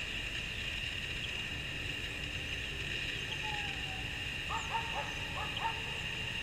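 A dog barking, several short quick yaps close together about four and a half seconds in, over a steady high hum and a low rumble.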